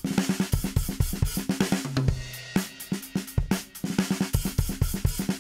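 An acoustic drum kit (Pearl Reference Pure shells, Sabian HHX hi-hats) playing a fast groove and fill: kick, snare and hi-hats, with the hi-hat lifted open on the kick strokes. A low drum rings briefly twice.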